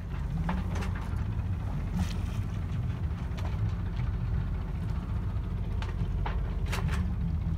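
Wind buffeting the microphone on a sailboat under sail: a steady low rumble, with scattered light clicks throughout.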